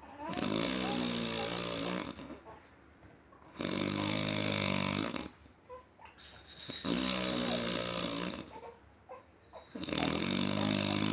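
A person in deep sleep snoring: four long snores about three seconds apart, each lasting a second or two, with quiet breaths between.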